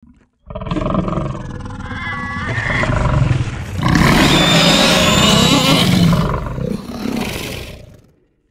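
Made-up monster roar for a boar-like creature: a growling, pitched call that starts about half a second in, grows into a louder, rougher roar about four seconds in, then fades away near the end.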